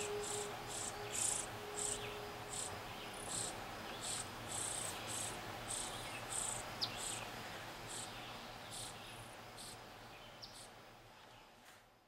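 Crickets chirping in short high pulses, two or three a second, fading away toward the end.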